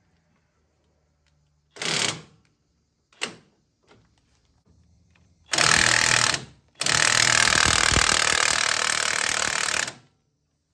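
Air-powered impact tool hammering in bursts as fasteners on the front spring and hub assembly are worked off: two short blips, then a run of about a second, then a longer run of about three seconds that stops sharply.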